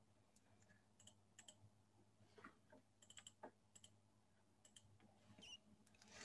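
Near silence with faint, scattered clicks of a computer keyboard, some of them in quick clusters.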